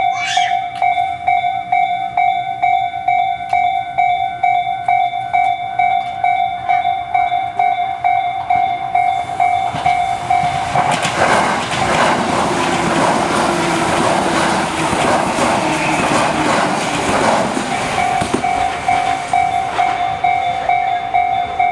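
Electronic level-crossing warning bell of the Tobu 'sound C' type, ringing steadily at about two strikes a second. From about nine seconds in, a Tobu 10030 series electric train passes over the crossing; its wheel and running noise drowns the bell for about seven seconds, and the bell then rings on.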